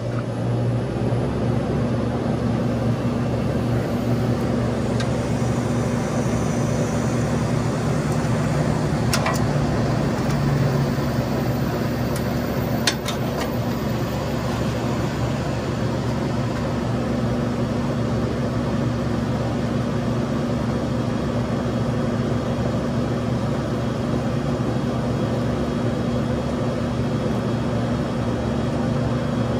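A brazing torch's flame running steadily as it heats the copper line joints on a refrigeration compressor to unsweat them, over a steady low hum. A few brief clicks come around the middle.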